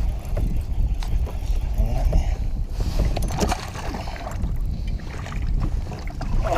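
Water splashing and slapping beside a kayak as a hooked bass thrashes at the surface, over a steady low rumble of wind on the microphone, with scattered small knocks.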